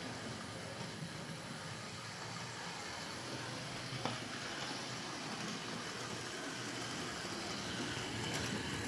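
Hornby Patriot Class OO gauge model steam locomotive running on its track: a steady motor hum and rumble of wheels on the rails. It grows a little louder near the end as the engine comes close, with a single click about four seconds in.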